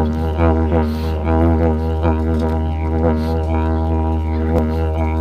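Didgeridoo played as one continuous low drone, its overtones sweeping up and down in a repeating, vowel-like pattern.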